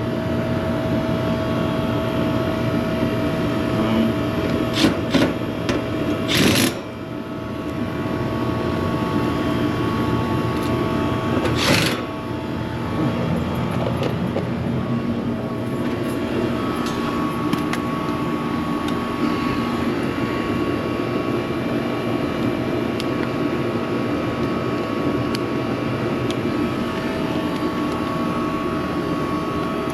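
Outdoor air-conditioning condenser running with a steady drone from its compressor and fan motor, back in operation on a newly replaced run capacitor. Two brief sharp noises break in about six and twelve seconds in.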